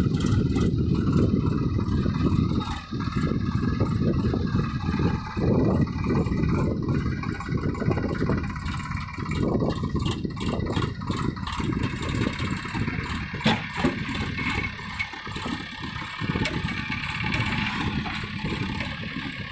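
Diesel engines of a Sonalika DI 42 tractor and a JCB backhoe loader working under load as the backhoe pushes the mud-stuck tractor, the engine noise rising and falling.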